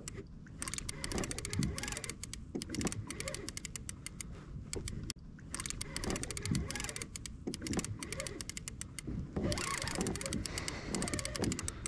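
Fishing reel clicking rapidly and unevenly while a hooked fish is being fought and reeled in, with short pauses about five and about nine and a half seconds in.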